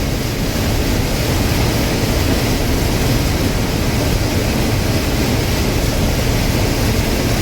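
Combine harvester running steadily while harvesting corn: a constant, even drone of engine and machinery.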